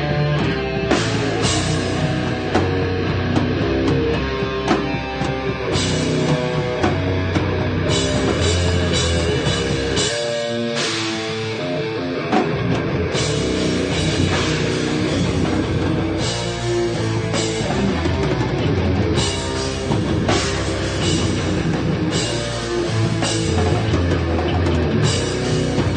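Heavy rock band playing live: guitar over a drum kit. The low end drops out for about two seconds near the middle before the full band comes back in.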